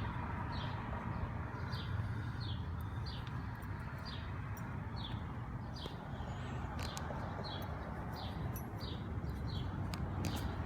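A small bird chirping over and over, a short falling chirp repeated roughly once a second or a bit faster, over a steady low hum. A few sharp clicks come in the second half.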